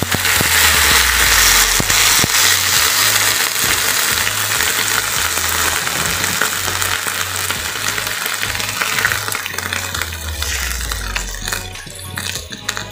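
Water sizzling in a hot wok of stir-fried pok choy, loud at first and dying down as it heats through. Near the end, a spatula stirs the greens with a few light scrapes.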